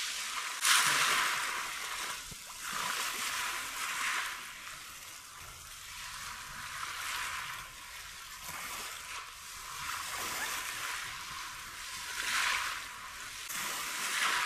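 Sea water splashing and sloshing around a swimming dog, coming in uneven surges.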